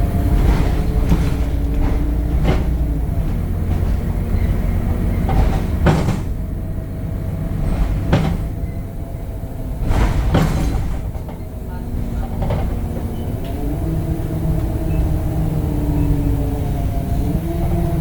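Temsa Avenue LF 12 city bus running, its DAF Euro 5 diesel and ZF gearbox giving a steady low rumble with a whine that rises in pitch about thirteen seconds in and again near the end. Several sharp knocks cut through it, the loudest about six and ten seconds in.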